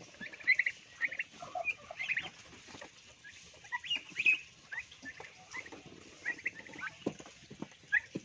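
A flock of young turkey poults peeping, with many short, high chirps overlapping one another, and a few soft knocks in between.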